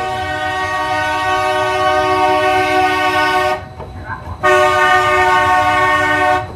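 Two long blasts of an Addis Ababa light rail tram's horn, each a steady chord of several tones. The first lasts about three and a half seconds and the second, after a short gap, about two seconds.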